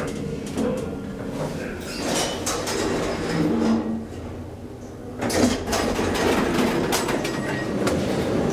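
Metro station noise with a train running. Heard first from inside a Schindler hydraulic elevator car, it jumps louder about five seconds in as the car's sliding doors open onto the platform.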